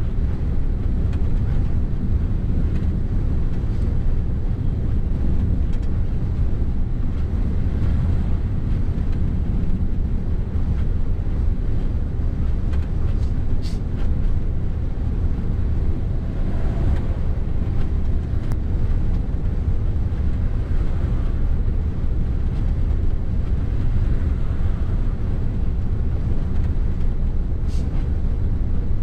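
Steady low drone of a Mercedes Actros truck cruising at motorway speed, with engine and tyre noise heard from inside the cab.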